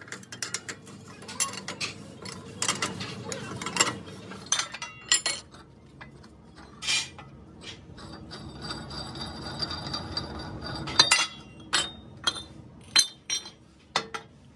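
Irregular metallic clinks and knocks of a steel tractor wheel rim and its clamping nut and bar being handled and tightened on a machine's mounting plate, over a low steady machine hum.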